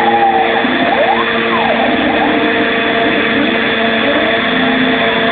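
CNC machine running: a steady motor hum and whine, with stepper-motor tones gliding up and down in pitch as the axes speed up and slow down.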